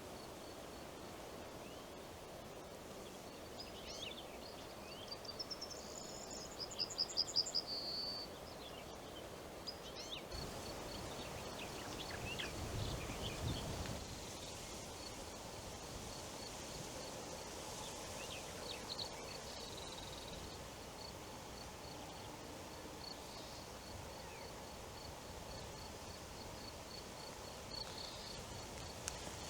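Faint forest ambience with wind in the trees. A small bird sings a rapid high trill about a quarter of the way in. For the rest of the time a single high note repeats at a steady, even pace, and a brief low gust of wind rises in the middle.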